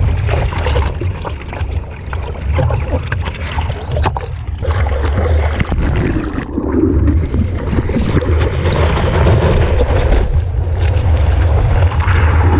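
Steady low rumble with wind buffeting the microphone and water splashing, as on a camera out on the ocean, with scattered sharp knocks.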